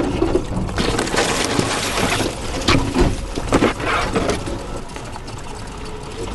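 Tracker EV electric UTV rolling along an overgrown trail: brush swishes against its side for about a second and a half, then comes a run of sharp snaps and knocks, over a steady low rumble and a faint steady hum.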